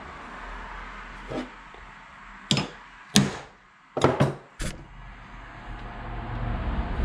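Sharp metal knocks and clatter at a bench vise: one faint knock, then five louder ones over about two seconds, from a steel threaded rod being worked into a drilled hole in copper pipe to force its threads.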